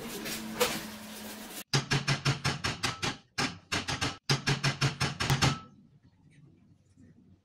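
A fast run of sharp knocks, about six a second, in three bursts that start and stop abruptly, then fades to a faint background.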